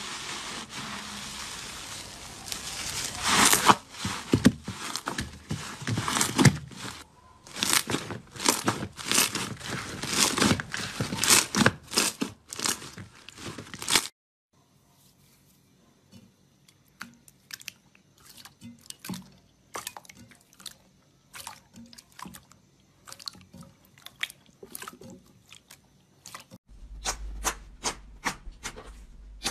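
Hands pressing and squishing slime: a dense, crackling crunch from a grainy, textured slime, which cuts off suddenly about halfway through. Sparser, softer clicks and pops follow as slime is stretched and poked.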